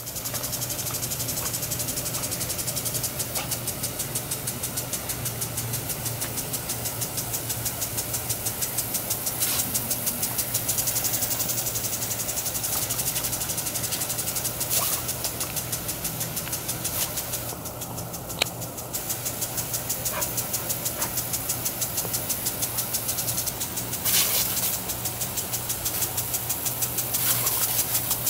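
Tripod-mounted impact sprinkler running: a rapid, even ticking from its swinging arm over the hiss of the water spray, with a steady low hum underneath. The spray hiss drops away briefly about two-thirds of the way through.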